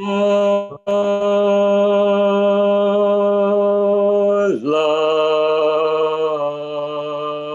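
A man singing long, held notes of a barbershop tag phrase ("No … love"), slow and unaccompanied. After a short break about a second in, he holds one steady note, dips down to a lower note about two-thirds of the way through, and steps down once more near the end.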